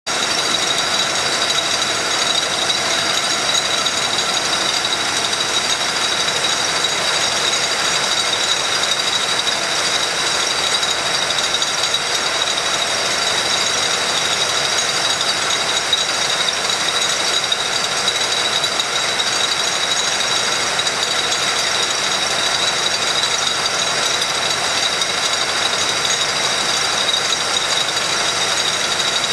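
Rotary beer bottle filler running at maximum speed: a dense, unbroken rattle of glass bottles moving through the machine, with a steady high whine over it.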